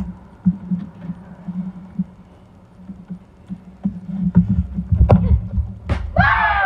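Running footsteps thudding on grass close to a camera lying on the ground, starting about four seconds in, with a sharp knock as a football is kicked. Near the end a child lets out a long yell that falls in pitch.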